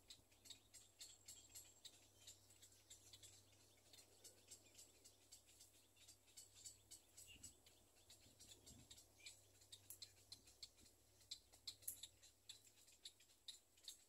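Faint, irregular, sharp high clicks, several a second, over a low steady hum.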